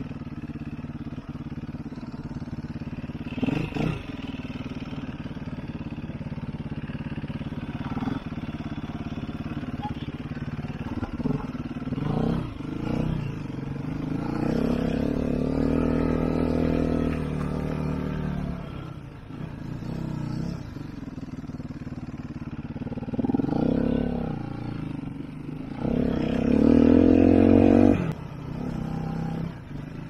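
Sherco 3.0i F four-stroke enduro motorcycle engine running while riding a dirt forest trail, mostly at low revs, with the throttle opened twice: the pitch rises and the engine gets louder about halfway through and again near the end, loudest the second time.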